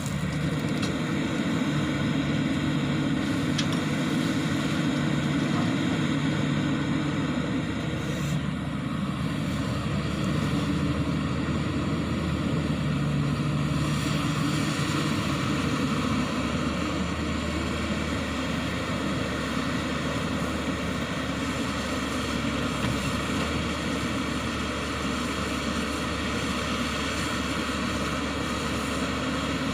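Diesel engine of a Hyundai 140W wheeled excavator running steadily under working load while loading gravel. Its low note shifts down slightly about halfway through.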